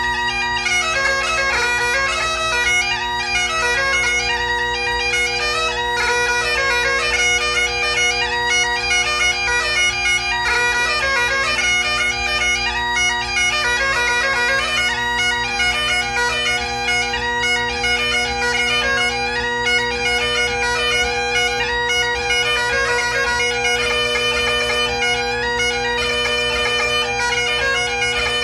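Great Highland bagpipe played solo: steady, unbroken drones under a chanter melody moving in quick notes with rapid ornaments.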